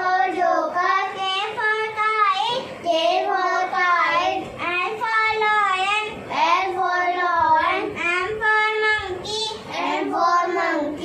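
A young girl singing an alphabet phonics chant in a high voice, letter by letter.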